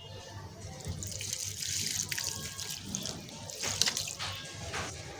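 Water running from a tap and splashing, starting about a second in.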